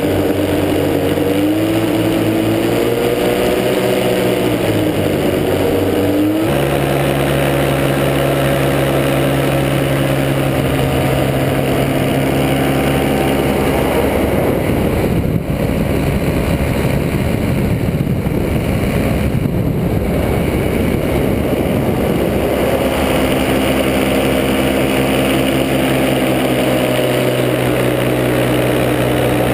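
Paramotor engine and propeller running in flight. The engine's pitch wanders up and down at first, changes abruptly about six seconds in, then holds steady. For several seconds in the middle a wind-like rush largely covers the engine note.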